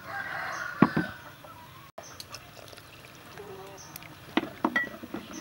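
Liquid poured from a bottle into a clay mortar, then a wooden pestle knocking against the inside of the mortar in a few separate thuds, more of them near the end.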